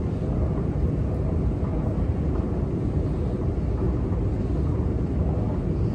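Steady low rumble of a long metro escalator running, heard while riding on it.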